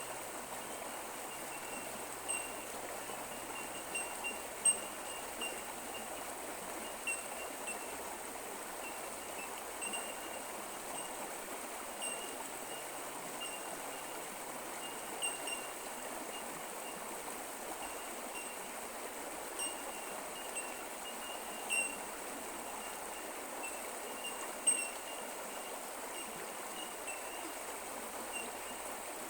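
A creek's water running and trickling steadily, with short high-pitched ticks at irregular intervals throughout.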